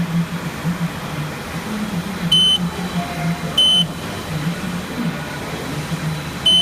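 Three short, high electronic beeps, irregularly spaced, over a steady low machine hum, typical of a Haas CNC mill's control beeping as keys are pressed.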